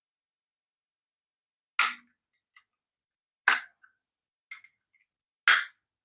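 Three sharp clicks about two seconds apart, with a few faint ticks between, as the adapter's circuit board is pried and worked loose from its plastic casing.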